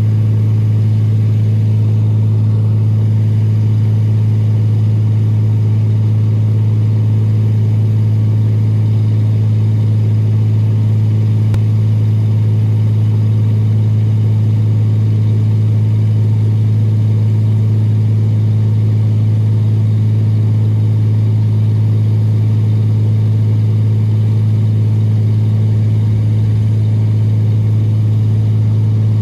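Excavator engine running at a steady speed: a loud, constant low hum that does not rise or fall.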